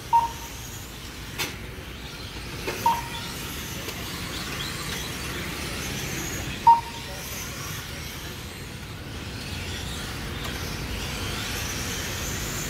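Radio-controlled race trucks running around the track, a steady whirring hiss of motors and tyres, with three short high beeps spaced a few seconds apart.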